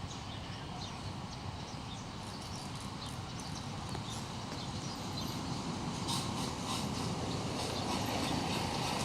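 Thai railway diesel locomotive running as it pulls in to refuel, the engine noise slowly growing louder as it draws near, with light clicks and knocks from about six seconds in.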